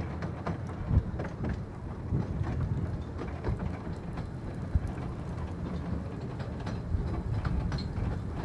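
Miniature-railway passenger coach on 15-inch gauge track rolling along: a steady low rumble with scattered clicks and knocks from the wheels over rail joints and pointwork. A sharper knock comes about a second in and another near five seconds.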